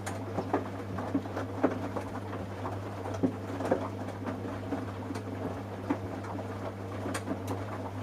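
Samsung washing machine running a wash with a pair of trainers loose in the drum: a steady motor hum under irregular thumps and clatters as the shoes tumble and knock against the drum, because they were not put in a laundry bag.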